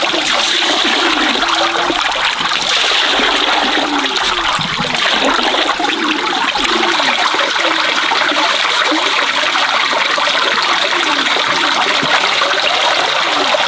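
Steady rush of running water splashing, with repeated short low calls over it that stop about halfway through.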